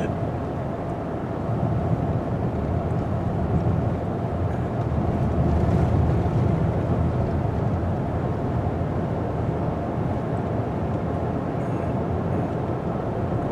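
Road and engine noise of a vehicle driving at speed, heard from inside the cab: a steady low rumble with a faint constant hum.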